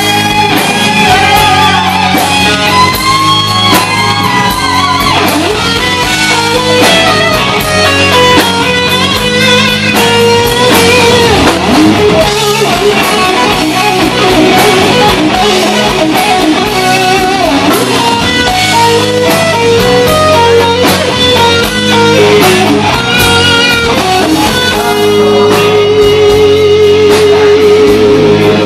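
Live rock band in an instrumental section: an electric guitar solo with bent, sliding notes over bass and drums. It ends on a long held note with vibrato.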